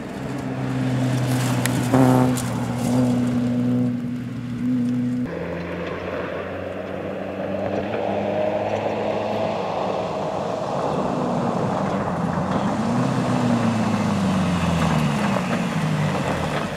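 Rally car engines on a gravel stage. First one runs at steady revs with a sharp crack about two seconds in. After an abrupt change about five seconds in, another car goes by with loud tyre-on-gravel noise, its engine note rising and then falling near the end.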